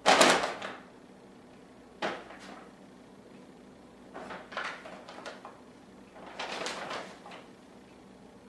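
Grocery bag rustling and crinkling in four bursts as kittens pounce on it and move in it. The first burst, right at the start, is the loudest.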